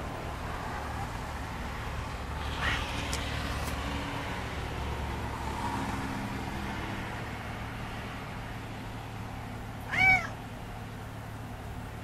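A house cat meowing: a faint short call about three seconds in, then one loud meow with a rise-and-fall in pitch near the end, over a steady low background hum.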